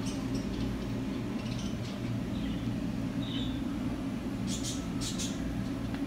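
Steady low indoor background hum, with a faint short high chirp about three seconds in and two brief rustling sounds between four and five seconds in.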